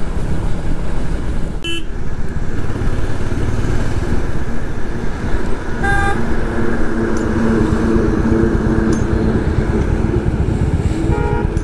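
Royal Enfield Hunter 350 single-cylinder motorcycle engine running under way, with steady road noise. Short vehicle-horn toots sound about 2 seconds in, about 6 seconds in and near the end.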